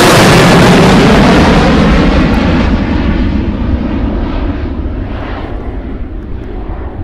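Boeing 737-800's CFM56 jet engines at climb power, a loud crackling roar that fades steadily as the airliner climbs away after take-off. The high end dies away first, leaving a low rumble by the end.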